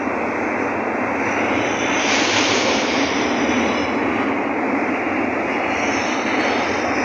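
Steady rushing noise of a moving train, wheel and wind noise blended into one even sound.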